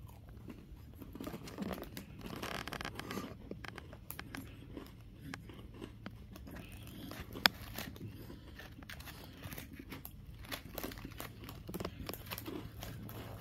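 Close chewing and crunching of an Oreo Space Dunk sandwich cookie, whose cream holds popping candy, bitten at the start and then chewed with many small irregular crunches. A single sharp click stands out about seven and a half seconds in.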